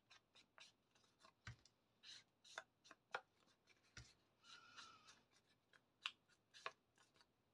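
Faint, irregular taps and short rubs of an ink dauber dabbed along the edges and fold of a paper tag.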